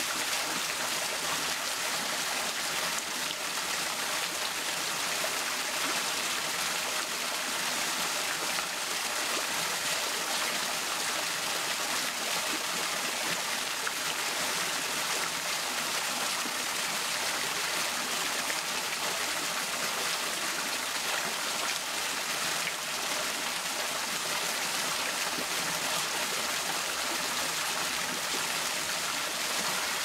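Small waterfall trickling and splashing down rocks: a steady, even hiss of falling water.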